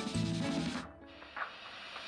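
Background music that cuts off about a second in, leaving a steady faint hiss from sugar caramelizing in a nonstick pan over a high gas flame as it is stirred.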